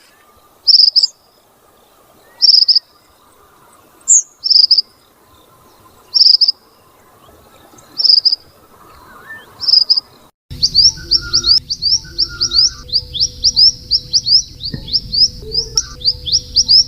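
Minivet (burung mantenan) calling: loud, short, high notes about every two seconds. About ten seconds in, the recording changes abruptly to a faster run of quick, high, rising notes over a steady low hum.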